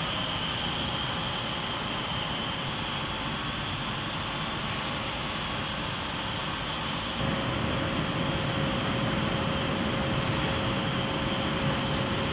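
Steady hum and rush of factory machinery with a faint constant tone, getting a little louder about seven seconds in.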